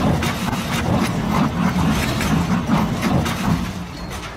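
Heavy truck engine running hard with an uneven, wavering note, mixed with metallic clattering and knocks. It eases off in the last second.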